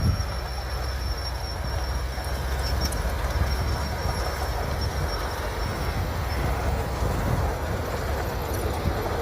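Bulldozer's diesel engine running steadily under load, a continuous low rumble with a faint high whine above it.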